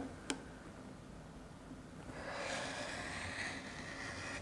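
Rotary cutter blade rolling through two layers of quilting fabric against a ruler on a cutting mat, a soft steady hiss starting about two seconds in, after a light click near the start.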